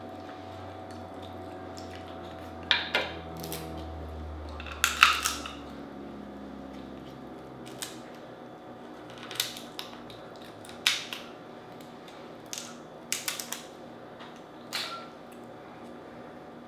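Dungeness crab shell cracking and snapping as pieces of leg are broken and the meat is picked out by hand: about ten sharp cracks in irregular clusters, the loudest about five seconds in, over a steady background hum.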